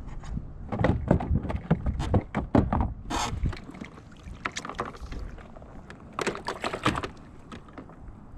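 A run of knocks, clunks and rattles from gear being handled aboard a fishing kayak, with a short hiss a little past three seconds in and another cluster of clicks and knocks near the end.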